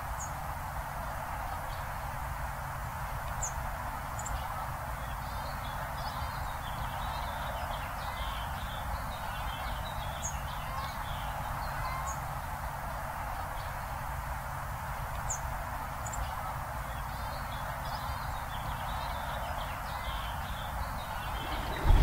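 Small songbirds chirping and calling in short, scattered high notes over a steady background hiss.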